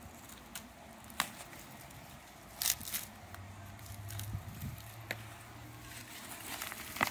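A hand trowel and gloved hand digging in loose garden soil to unearth sweet potatoes. There are a few separate scrapes and crackles of soil, dry roots and leaves, spread out, with the sharpest one near the end.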